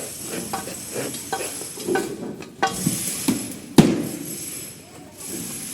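Irregular knocks and clinks, about a dozen, with one loud knock near the middle, over a steady hiss.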